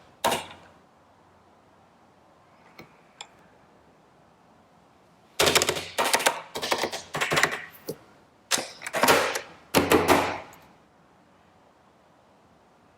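Typing on an HHKB Professional Hybrid keyboard with stock Topre electrostatic capacitive switches: fast flurries of keystrokes from about halfway in until near the end, after a mostly quiet stretch broken by a couple of faint taps.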